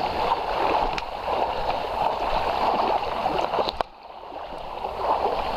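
Shallow river water rushing over a gravel riffle, with splashing as a man wades through it pulling an inflatable canoe. The rush drops suddenly about four seconds in and builds back.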